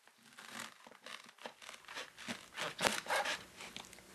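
Chef's knife slicing through a fresh leek onto a wooden cutting board: a run of short cuts at an uneven pace, louder around three seconds in.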